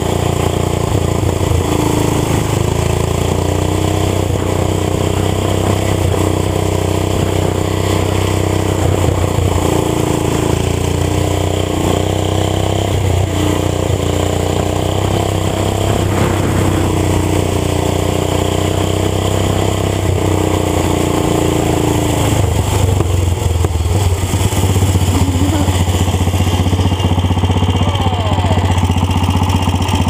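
Small petrol engines of garden tractors running hard as the tractors race around a go-kart track, a loud steady engine note that wavers slightly in pitch and shifts about three quarters of the way through.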